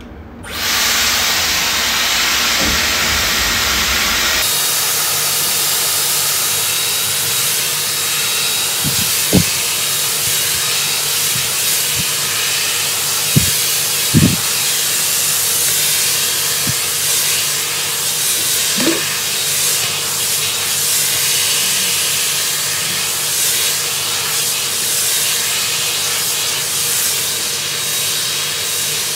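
Dyson Airwrap hair styler with its smoothing brush switched on at high heat and high fan speed: a steady rush of blown air starting about half a second in, with a faint thin whine. A few light knocks come through it around the middle.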